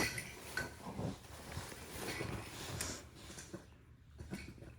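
Rottweiler puppy playing, with faint rustling and scattered light clicks and knocks as she mouths and paws at a toy and her bed.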